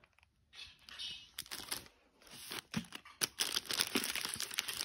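Plastic snack-bar wrappers crinkling and packaged food rustling against a cardboard box as items are handled. The rustling is sparse at first and gets busier from about three seconds in.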